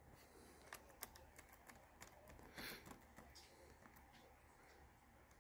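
Faint, scattered key clicks from a Lenovo ThinkPad T460 laptop keyboard, single keys pressed one at a time to test the freshly replaced keyboard.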